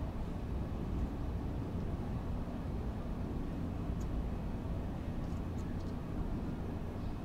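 Steady low rumble of distant road traffic in a residential neighbourhood, with a few faint high ticks about four to six seconds in.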